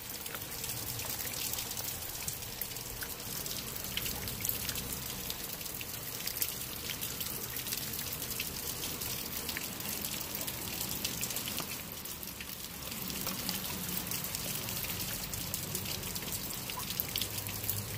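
Steady rain, its drops ticking sharply close to the microphone, while a Blue Bay Shepherd chews a raw fish.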